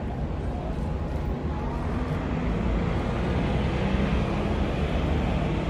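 Steady low engine rumble, with a faint hum, from a ferry lying at the pier, under an even hiss of waterfront ambience that grows a little louder about two seconds in.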